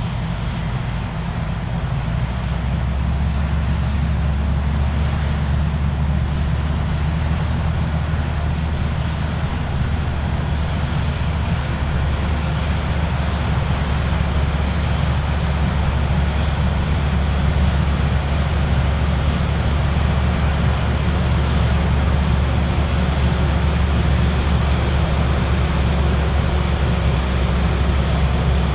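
Claas Lexion 780TT combine harvester running under load while harvesting barley, a deep, steady engine rumble with a broad mechanical roar over it. It grows louder over the first few seconds, then holds steady.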